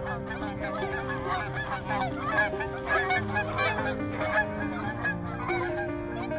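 A flock of geese honking, many short calls overlapping without a break, over background music with long held notes.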